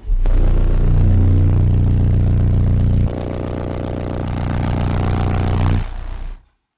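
Six custom Soundstream XXX 15-inch subwoofers playing a 30 Hz test tone on a Soundstream TXP1.18000D amplifier wired to 0.47 ohm, heard inside the vehicle's cabin: a deep drone with a harsh buzz over it. It comes on suddenly, drops in level about three seconds in, and cuts off about six seconds in. The burp meters at 151.4 dB.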